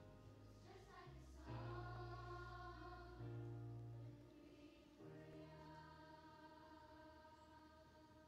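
Large children's choir singing slow, held notes over low instrumental accompaniment, heard faint. The chords change every second or two, and the last one is held and fades away near the end.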